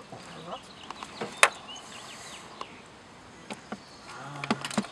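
Scattered sharp clicks and clinks of hand tools at work on a car, with one loud knock about a second and a half in and a quicker run of clicks near the end, over faint outdoor background with insects.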